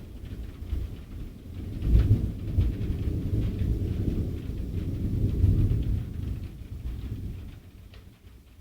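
Thunder rolling in a heavy thunderstorm: a deep rumble that swells about two seconds in, holds for a few seconds, then dies away near the end, with rain hissing faintly underneath.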